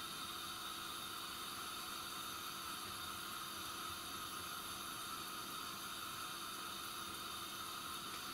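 A steady, faint hiss with no knocks or clatter.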